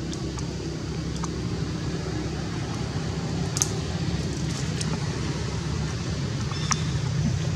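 Steady low rumble, with a few faint sharp clicks, one about halfway and one near the end.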